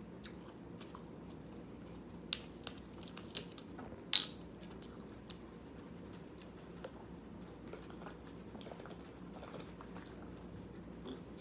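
Close-up chewing of jjajangmyeon (thick noodles in black bean sauce), with scattered wet mouth clicks and a sharper click about four seconds in.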